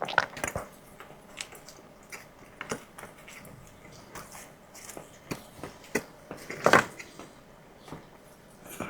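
A person chewing and biting food close to the microphone, with irregular short mouth clicks and smacks and a louder cluster of them about seven seconds in.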